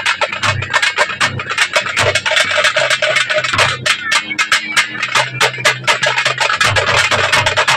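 A troupe of parai (thappu) frame drums beaten with sticks in a fast, dense rhythm, with a deep drum beat underneath.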